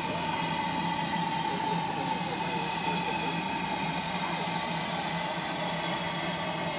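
Ivatt Class 2MT 2-6-0 steam locomotive No. 46443 hissing steadily as it edges slowly forward, with a steady hum under the hiss and no separate exhaust beats.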